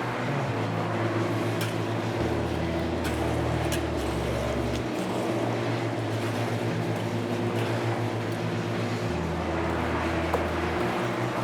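An engine running steadily under a low bass line that changes note every second or so.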